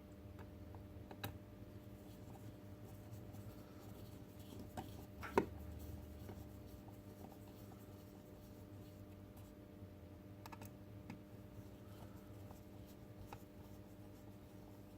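Faint scattered clicks and taps of small plastic robot-kit parts and a screwdriver being handled, with one sharper click about five seconds in.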